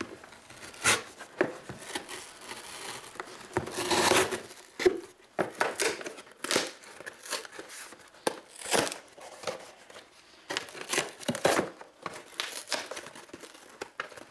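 A serrated folding knife cutting into a small cardboard shipping box, then the cardboard flaps being pulled and torn open: a run of short, irregular scratchy rips and crinkles.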